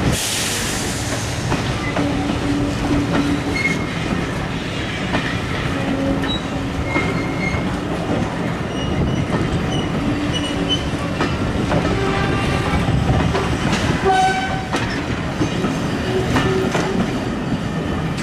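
Vintage railway passenger coaches rolling slowly past over points and rail joints: a steady rumble of wheels with clicks and short squeaks and creaks from the wheels and running gear.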